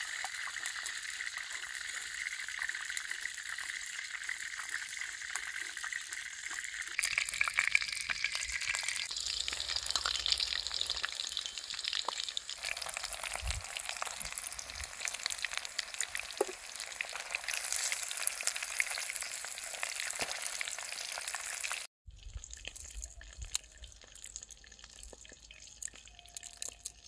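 Food frying in hot oil: a steady sizzle with scattered crackles. The sizzle shifts about seven seconds in, breaks off suddenly near the end, and comes back much quieter.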